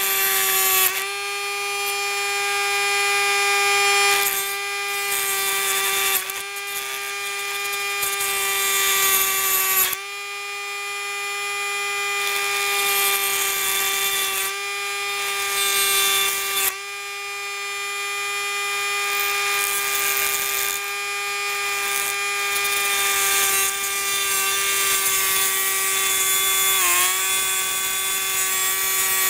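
Dremel Stylus cordless rotary tool running at a steady high whine while its cut-off wheel grinds through a thin metal rod. The grinding hiss builds and falls away every two to four seconds as the wheel is pressed into the metal and eased off. Near the end the motor's pitch dips briefly under load.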